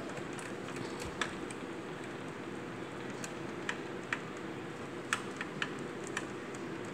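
Spoon stirring a thick sour cream and hot sauce dip in a small glass bowl, giving faint, irregular clicks against the glass over a low steady hiss.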